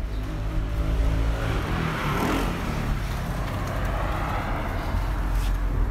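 A motor vehicle engine running with a steady low rumble, and a rushing hiss that swells and fades through the middle.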